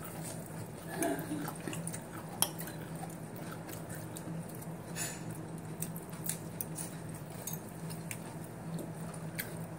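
Metal fork clicking and scraping against a salad bowl in scattered light strikes, over a steady low hum.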